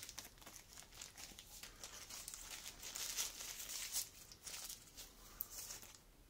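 Plastic caution tape crinkling and rustling in irregular bursts as it is pulled taut and wrapped around a glued-up wooden horn to clamp its two halves together; the rustling dies down near the end.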